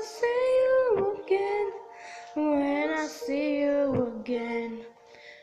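A high-pitched voice singing a tune, with held notes that slide up and down between short breaks; it fades away near the end.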